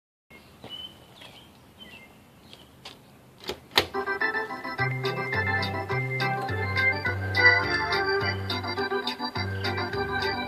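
A few sharp clicks about three and a half seconds in, then organ music with a stepping bass line starts playing from the Chicken Machine's speaker, its Raspberry Pi replacement sound track.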